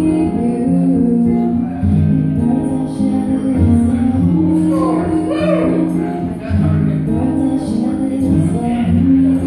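Two acoustic guitars strummed together, their chords changing every second or two, with a woman singing into a microphone over them.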